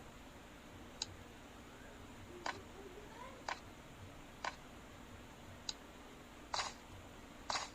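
Light, sharp taps on a smartphone, seven in all at about one a second, the last two a little louder.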